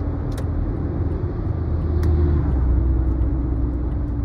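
Steady road and engine rumble heard inside a moving car. It swells for a moment about two to three seconds in.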